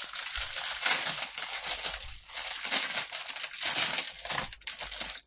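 Thin clear plastic packaging bag crinkling and crackling as it is handled and opened to get a silicone mold out, continuous for about five seconds, then stopping suddenly.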